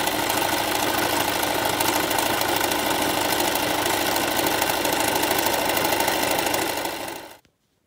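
Domestic electric sewing machine running steadily at speed, its needle stitching through tulle netting; the motor stops just before the end.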